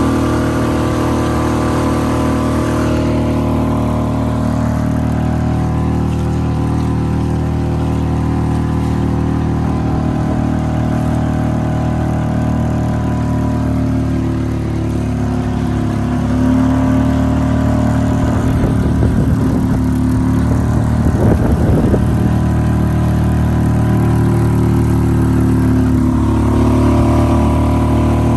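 Suzuki 2.5 hp four-stroke single-cylinder outboard motor running steadily under way, pushing a canoe along. Its pitch shifts a little, and it gets slightly louder about halfway through.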